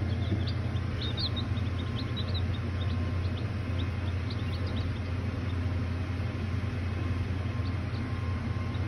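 A brood of three-day-old chicks peeping: many short, high peeps, thickest in the first couple of seconds and sparser after. Under them runs a steady low hum.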